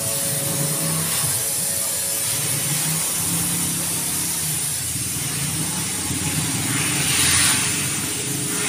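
Water spraying from a hose onto a car's body over a steady mechanical hum. The hiss of the spray grows louder about seven seconds in.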